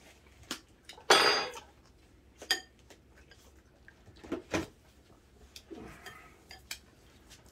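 Eating utensils clinking and tapping against bowls and plates as people eat, with a louder ringing clink about a second in and another about a second and a half later, then lighter knocks.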